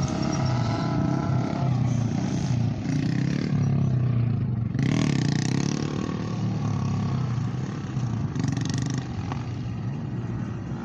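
Motorcycle engines running and revving, their pitch rising and falling, with two short rushes of noise about five and eight and a half seconds in.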